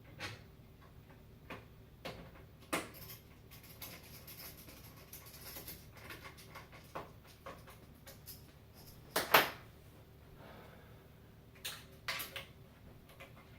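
Hands working on a computer case while fitting a case fan: scattered clicks and knocks of plastic and metal parts being handled, with one sharp knock about nine seconds in as the loudest.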